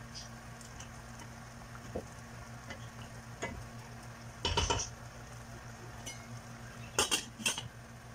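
Wooden spoon stirring a thick creamy sauce in a stainless steel pot, with soft scrapes and knocks and a louder clatter about halfway through. Near the end, a few sharp metal clinks as the steel lid is set on the pot. A steady low hum runs underneath.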